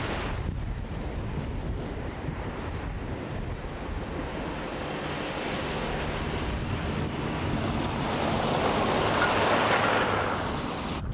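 Wind blowing hard across the microphone, swelling to its loudest near the end before cutting off suddenly.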